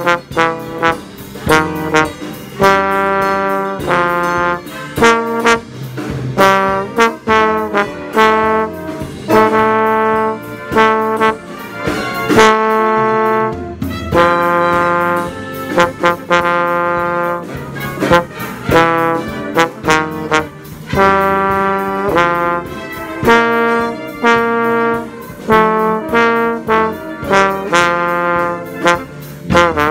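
Slide trombone played right at the microphone, a line of separate notes that change pitch, in short phrases with brief breaks between them.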